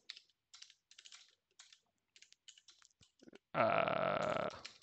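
Computer keyboard typing: scattered, uneven key clicks as commands are typed into a text editor. A little past halfway, a louder steady, noisy sound lasts about a second, then the typing carries on.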